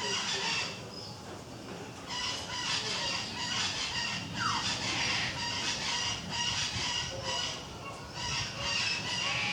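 Caique parrot calling: a string of long, buzzy calls, broken by short pauses about a second in and again near eight seconds.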